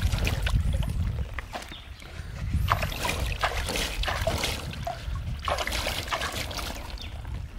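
Hands scooping and splashing water over large taro leaves to wash them, with irregular splashes and trickling water.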